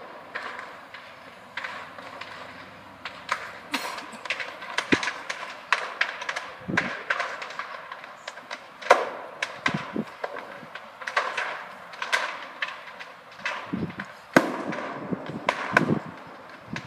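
Repeated sharp pops and bangs at irregular intervals from explosions at a fire, a few with a deeper thud.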